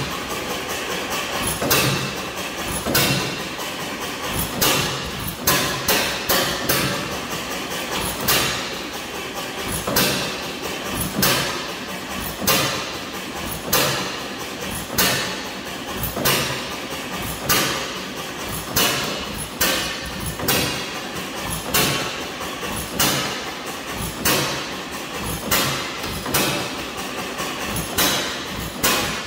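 Antique hit-and-miss gas engine running: a sharp firing bang roughly every second and a quarter, with lighter clicks and knocks between as the flywheels coast.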